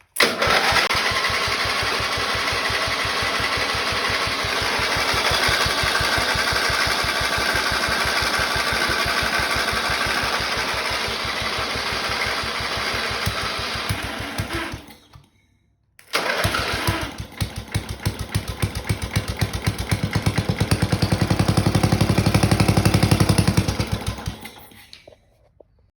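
Engine of a 1975 Montgomery Ward riding mower, just revived and with its carburetor not yet cleaned, running steadily, then dying away about fifteen seconds in. After a short break it runs again with distinct firing beats, speeds up and grows louder, then shuts down near the end.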